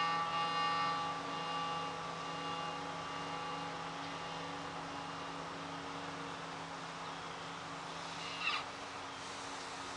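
The last chord of a Stratocaster-style electric guitar ringing out through a small Fender practice amp, fading over amp hiss and hum. A low note sustains until it is cut off with a brief scratch about eight and a half seconds in.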